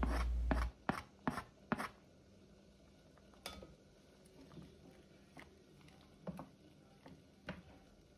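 Wooden spoon scraping chopped onion and peppers off a plastic cutting board into a pot of broth, then stirring: a handful of soft, scattered knocks and taps. A low hum cuts off abruptly under a second in.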